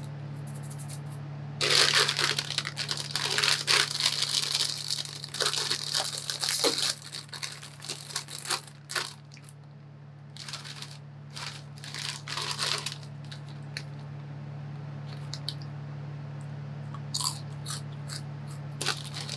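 A foil snack bag of Cheetos is torn open and crinkled, loud crackling for about five seconds, then lighter rustles and a few small clicks. A steady low hum runs underneath.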